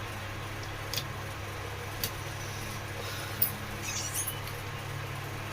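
A few small clicks of screws and a screwdriver as a table fan's rear cover is screwed back on, with a brief high squeak about four seconds in. A steady low hum runs underneath.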